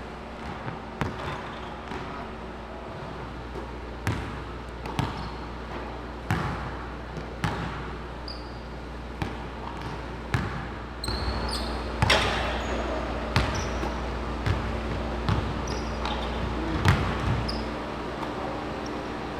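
Basketballs bouncing on a court: irregular knocks from several balls, with a few brief high squeaks, over a steady hum of a large hall.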